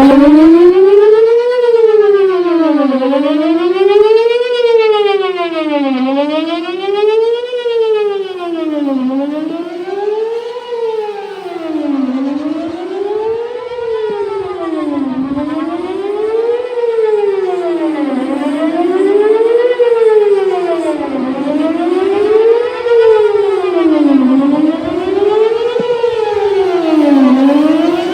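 Electronic outdoor warning siren sounding a wail during a system test. It cuts in suddenly and sweeps steadily up and down in pitch about every three seconds.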